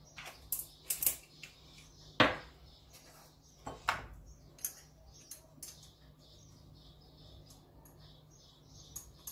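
Small glass spice jars and their plastic lids being handled on a kitchen counter: a scatter of light clicks and taps, with two sharper knocks about two and four seconds in.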